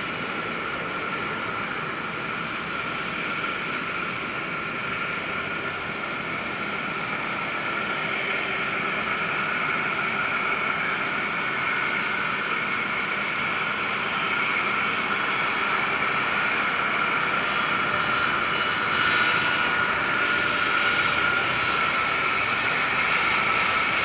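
Airbus A320 jet engines running at taxi power: a steady whine over a rushing noise, slowly growing louder as the airliner taxis closer.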